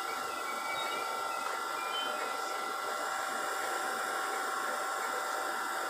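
LNER InterCity 225 train, Mark 4 coaches with a driving van trailer leading, creeping slowly into the platform: a steady running noise with a constant high whine over it.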